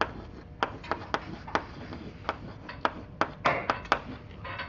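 Chalk writing on a blackboard: an irregular run of sharp chalk taps, a few each second, with light scraping between them.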